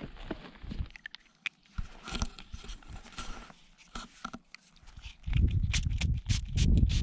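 Close handling noise: soft clicks and scuffs. About five seconds in, a loud low rumble comes in with quick, repeated rubbing strokes, as dirt is rubbed off a freshly dug coin.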